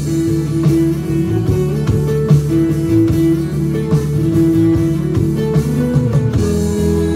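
Live band music: guitar and low sustained notes over a steady beat from drums played with sticks.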